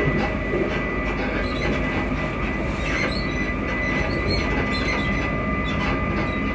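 Class 334 electric multiple unit's traction motors whining at two steady pitches while cruising at constant speed. Under the whine is the steady rumble of wheels on rail, heard from inside the passenger saloon. A single brief knock comes right at the start.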